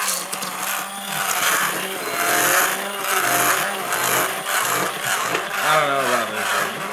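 Handheld electric immersion blender running in a pot of thick pancake batter: a steady motor whine under a churning noise that swells and eases as the blade is worked through the batter, making a bunch of noise.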